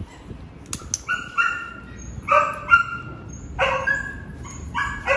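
German Shepherd giving a string of short, high-pitched whines and yips, about six in a few seconds.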